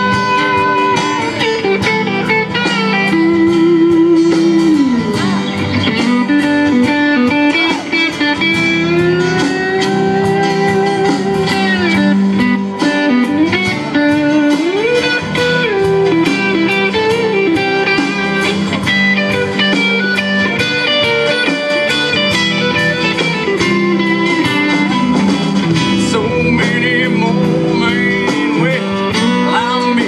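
Live band playing an instrumental break: a lead guitar plays bending, gliding notes over strummed guitars, bass and drums.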